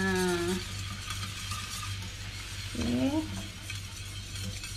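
Wire whisk stirring and scraping a thick flour-thickened sauce in a stainless steel frying pan over a low sizzle of the cooking sauce. A short wordless voice sound is heard at the start and again about three seconds in.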